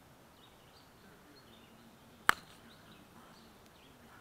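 One sharp wooden knock about two seconds in, a croquet mallet striking a ball. Faint bird chirps come and go behind it.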